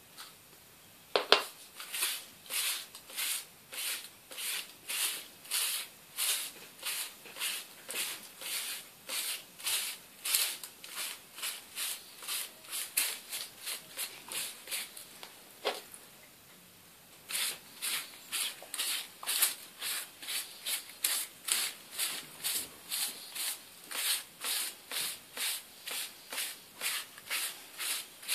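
A paint-loaded sponge dabbed and scrubbed against paper feathers in quick short strokes, about two to three a second, each one a brief scratchy rasp. The strokes start after a sharp knock about a second in and pause once for about a second and a half a little past the middle.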